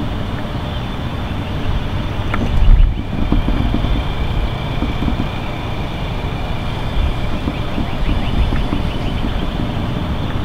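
Outdoor noise of wind rumbling on the microphone, with a louder surge about two and a half seconds in, over a steady high-pitched mechanical hum.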